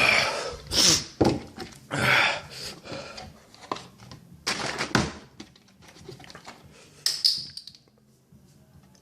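A man breathing hard after eating a ghost chili pepper: several sharp, hissing breaths and gasps against the burning heat in his mouth, with a few small knocks between them.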